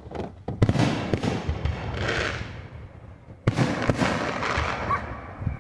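Aerial fireworks bursting: two loud bangs about three seconds apart, each trailing off over a couple of seconds.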